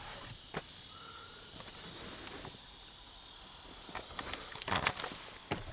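Steady high hiss of outdoor background, broken by a few scattered clicks and a cluster of light knocks and rustles about four to five seconds in.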